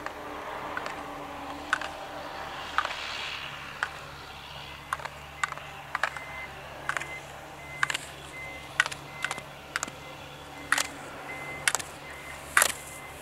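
Slalom gate poles being struck by a ski racer crossing through them: a string of sharp clacks at about one a second, louder near the end as the skier comes closer.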